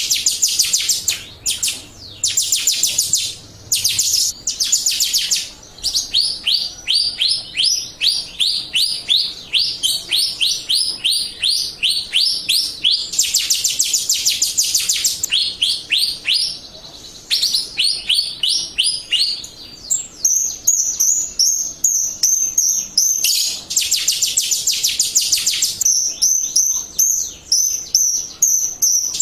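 Jalak Rio starling song, played as a trigger recording: rapid series of short, high, downward-sliding chirps, several a second, broken by brief pauses and a few longer, buzzy notes.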